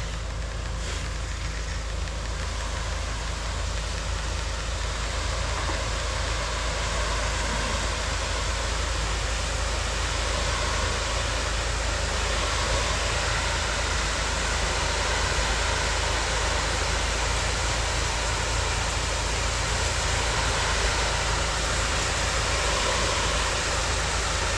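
Pressure-washing rig running steadily: an engine hum underneath a continuous hiss of high-pressure water spray.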